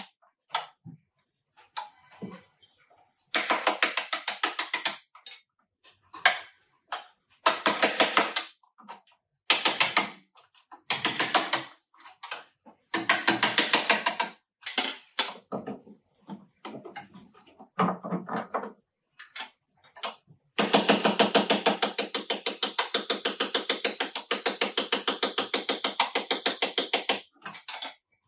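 Ratchet clicking in repeated short bursts of rapid clicks, with one long continuous run of about six seconds near the end.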